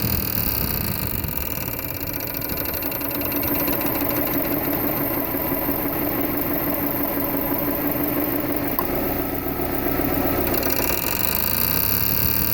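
Saab 9-2X Aero's turbocharged flat-four engine running with the AC on. A rapid rhythmic mechanical noise and a steady hum start about a second in and stop near the end. The noise only appears with the AC on, and the owner ties it to the newly fitted AC idler pulley.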